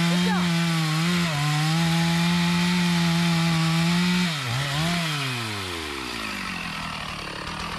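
Chainsaw held at full throttle, cutting into mahogany wood at a steady high pitch. About four seconds in the revs dip twice, then wind steadily down to idle.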